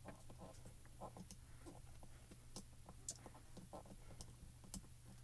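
Faint scattered clicks and taps of fingers and nails pressing a clear acrylic stamp down onto cardstock, with two slightly sharper ticks near the end, over a low steady hum.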